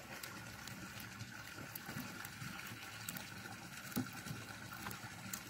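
Faint clicks and leaf rustling from a caged chukar partridge pecking at green leaves held through wooden slats, over a steady low hiss. The sharpest click comes about four seconds in, as the bird snatches at the leaves.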